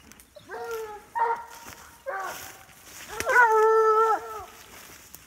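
A dog baying: four drawn-out, pitched cries, the last one the loudest and held for about a second.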